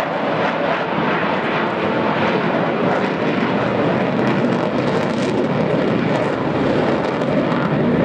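The Avro Vulcan's four Rolls-Royce Olympus turbojet engines in flight as the delta-wing bomber banks overhead: a loud, steady jet rush with no break.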